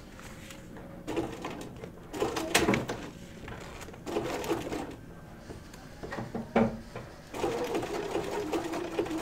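Bernina sewing machine zigzag-stitching to couch yarn onto a quilt, running in about five short spurts with pauses between, the last and longest near the end.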